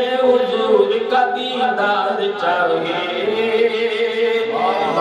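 Unaccompanied male voice chanting an Urdu naat, drawing out a long wavering melodic note without clear words, over a steady held drone note.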